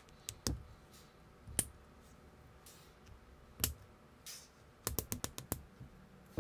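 Small plastic building-brick pieces clicking as they are snapped together by hand: scattered sharp clicks, then a quick run of about five clicks about five seconds in.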